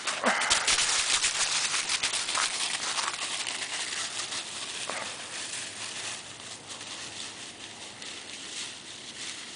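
Footsteps crunching and rustling through a thick layer of dry fallen leaves, loudest in the first few seconds and slowly fading.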